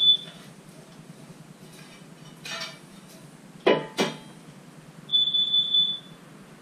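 Carbon monoxide alarm chirping with a high-pitched steady beep, the end of one right at the start and a full beep lasting about a second around five seconds in: it is going off because the smoky forge has put CO into the workshop. About two thirds of the way in come two sharp metallic clinks close together.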